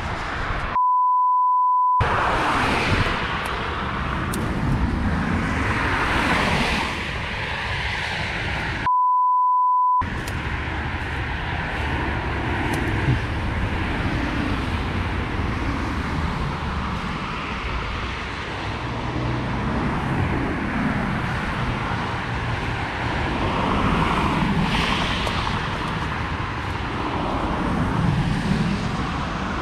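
Traffic passing at speed on a wet motorway: a steady rush of tyres and wind that swells and fades as vehicles go by. Two steady bleep tones, each about a second long, replace the sound about a second in and again about nine seconds in.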